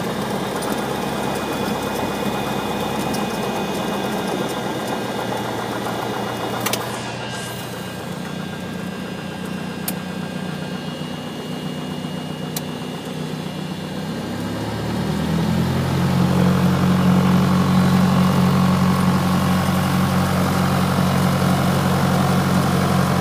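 Cessna 172's piston engine and propeller running at low taxi power, heard inside the cabin. About fifteen seconds in the power is brought up and the engine gets louder and slightly higher in pitch. There is a single sharp click about seven seconds in.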